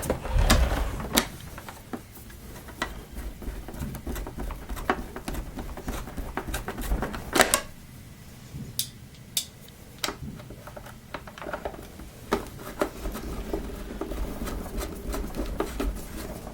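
Scattered clicks and knocks of hard plastic vacuum-cleaner casing parts being handled while screws are driven into the back of the housing, over a low rumble.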